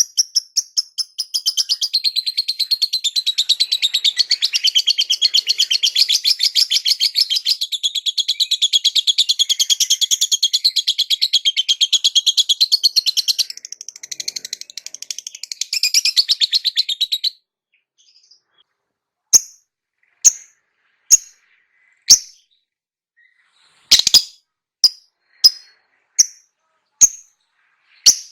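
Lovebird chattering in a long, fast, unbroken trill for about seventeen seconds, then after a short pause giving single sharp chirps roughly once a second.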